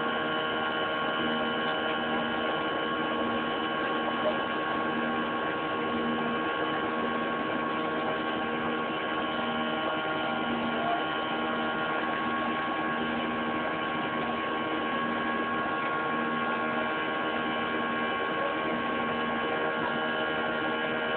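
Boeing 737's twin turbofan engines and airflow heard inside the passenger cabin in flight: a steady, dense drone with a low hum that swells and fades about once a second.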